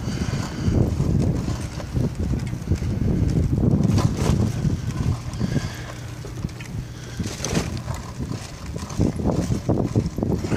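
Wind buffeting the microphone on a moving bicycle, over the rumble of its tyres on brick paving, with a couple of sharper rattles along the way.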